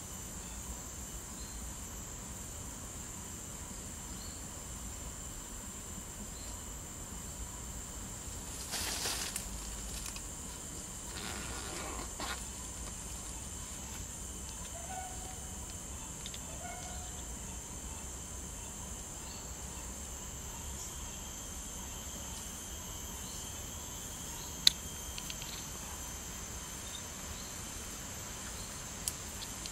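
Steady high-pitched drone of jungle insects, with a brief rustling burst about nine seconds in and a single sharp click near the end.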